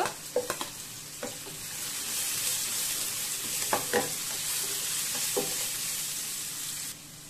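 Chopped onions, cashews and green chillies sizzling in hot oil in a frying pan while a spoon stirs them, with a few short knocks of the spoon. The sizzle grows louder about two seconds in and falls away just before the end.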